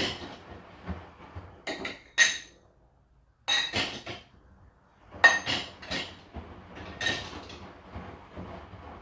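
Dishes and glasses clinking and knocking as they are loaded into the racks of a Whirlpool dishwasher, in several bursts with a short silence about midway.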